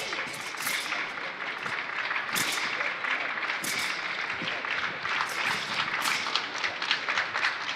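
Crowd applauding, an even patter of many hands with sharper single claps standing out here and there.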